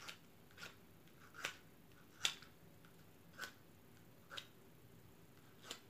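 A match struck against the striker strip of a small matchbox, about six short scrapes roughly a second apart, the loudest a little over two seconds in. It keeps failing to catch.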